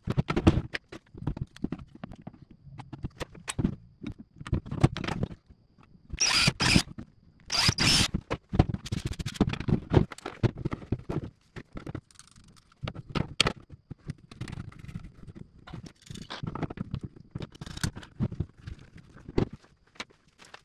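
Hands working on a plastic ammo-can-style box on a workbench: a string of knocks, clicks and scrapes against the plastic, with two short harsh noisy bursts about six and eight seconds in.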